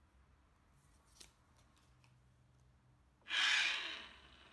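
Mitre gauge fence being adjusted on the table saw: a faint click about a second in, then a short metallic scrape lasting under a second, about three seconds in.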